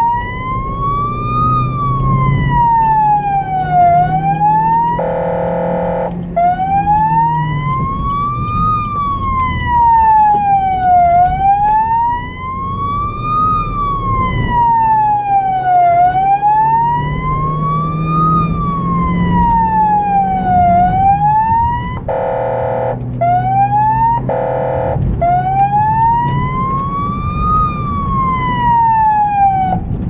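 Emergency-vehicle siren on a blood-transport car sounding a slow wail, rising and falling about every five seconds. It is broken three times by short, steady horn blasts: one about five seconds in and two close together near the end. The vehicle's engine runs underneath.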